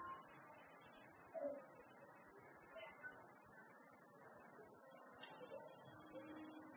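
Steady high-pitched chorus of cicadas in the trees, droning without a break.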